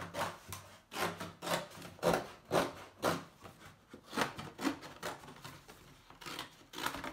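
Scissors cutting through a thin cardboard product box in a run of separate rough snips, with cardboard rustling near the end as the cut piece is handled.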